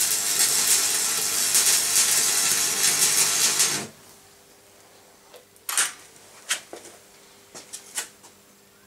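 Electric arc welding: the arc crackles and sizzles steadily for about four seconds, then cuts off suddenly. A few faint, sharp clicks follow.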